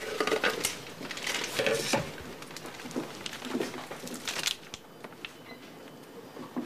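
Kitchen handling sounds: light clinks, scrapes and rustles of a bowl, utensils and a filled piping bag, busy at first and quieter after about four and a half seconds.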